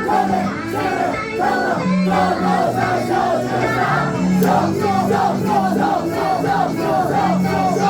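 A crowd of many voices chanting in a fast repeating rhythm over music with held low notes.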